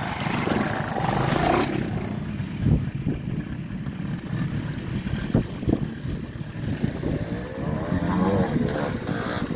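Classic trials motorcycle engines running at low speed with irregular throttle blips: first a bike close by as it picks through a rocky section, then, after a change about two seconds in, engine running with on-off blips, including a short rev near the end.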